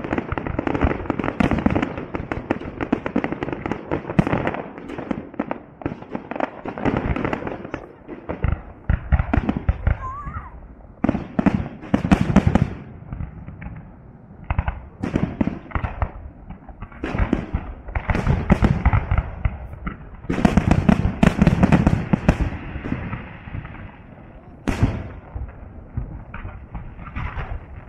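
Fireworks salute: aerial shells bursting in rapid volleys of bangs and crackle, with short lulls between salvos and a single sharp bang near the end.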